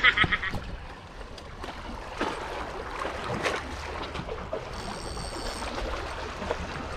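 Seawater sloshing and splashing against breakwater rocks, with a few sharper splashes from a hooked emperor fish at the surface.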